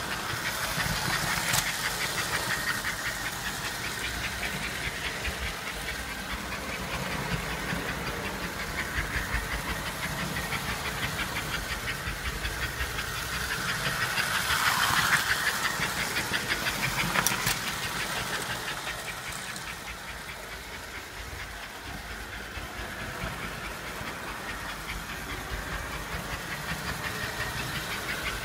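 American Flyer 293 S-gauge model steam locomotive running around the track: a steady motor hum and rapid wheel clatter on the rails, swelling as it passes close around the middle. A sharp click sounds near the start and again a couple of seconds after the loudest point.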